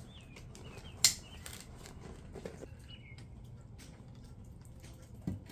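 Rubber dry bag being rolled shut, a plastic rustling with one sharp click about a second in, typical of its buckle snapping closed. Faint bird chirps can be heard in the background.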